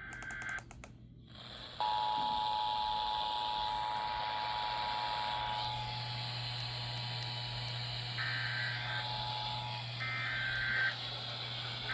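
Emergency Alert System tones over broadcast audio: about a second of screeching digital header bursts, then the two-tone attention signal, two steady beeping tones held together for about eight seconds. Two short bursts of a higher data tone break in near its end, over a steady hiss and hum.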